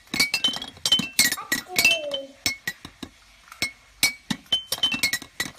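Toy xylophone bars struck with a wooden mallet: a quick, uneven run of bright, high pinging notes that thins out briefly about halfway through, then picks up again.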